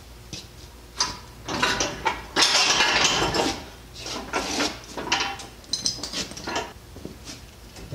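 Steel parts of a 20-ton shop press clanking and scraping against each other and the axle knuckle as the press is taken apart: a run of irregular metallic rattles and scrapes, the loudest a longer scrape about two and a half seconds in.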